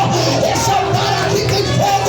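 Worship music with a voice singing a gliding melody over a steady accompaniment.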